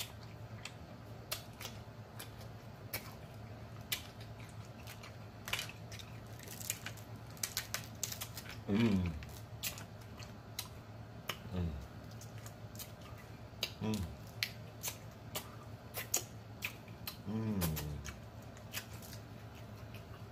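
Close-miked eating of snow crab legs: wet smacking and sharp clicking mouth and shell sounds scattered throughout. Four short "mmm" hums of enjoyment, each falling in pitch, come in the second half.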